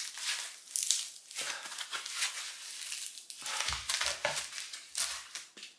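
Packaging crinkling and rustling as a wrapped item is handled and unwrapped, with a few dull knocks about four seconds in.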